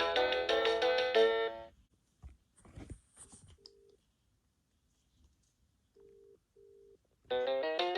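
BT Paragon 550 telephone playing a polyphonic ringtone melody that stops after about a second and a half. A few faint handling clicks and three short key beeps follow, and another ringtone melody starts near the end.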